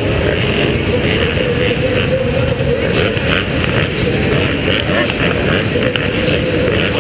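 A pack of supercross dirt bike engines running together at the starting gate, a loud dense drone with the revs rising and falling.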